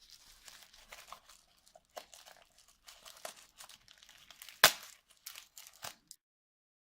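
Plastic bubble wrap being crinkled and pulled apart by hand, with scattered rustles and clicks and one loud sharp snap a little past halfway through; the sound cuts off suddenly about six seconds in.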